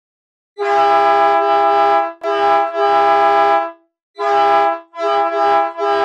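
Train air horn sounding up close, several notes at once, in a run of blasts: a long one starting about half a second in, another long one, then two shorter ones, the last running on.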